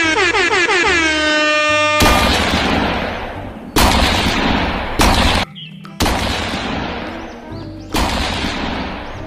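Added sound effects over background music: a pitched whine falling in pitch for about two seconds, then five loud gunshot blasts, each ringing out for a second or more before the next.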